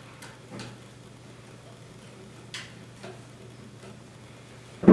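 Faint metallic clicks from hands working the .177 barrel loose at the action of a Beeman air rifle, over a low steady hum, then a loud knock near the end.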